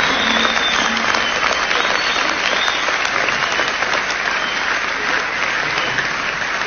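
Concert audience applauding with dense, steady clapping, while the band's last held notes die away about a second in.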